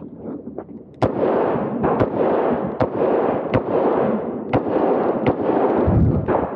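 Smith & Wesson 625 revolver firing a string of about six shots, roughly one a second, beginning about a second in.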